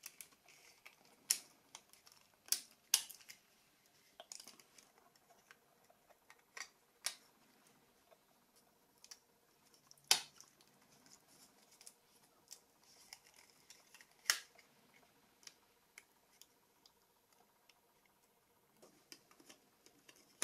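Irregular sharp clicks and taps of small plastic phone parts being handled, around the keypad buttons of a Nokia 2760. The loudest come about ten and fourteen seconds in.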